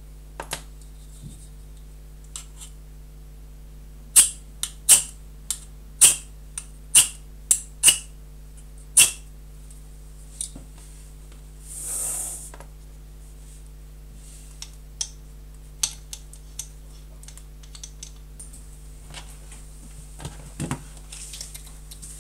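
Small hand-tool and handling sounds on a workbench: a run of about nine sharp clicks over five seconds, then a short hiss about twelve seconds in as a small alcohol burner is lit, followed by light knocks as the Stirling engine is set down.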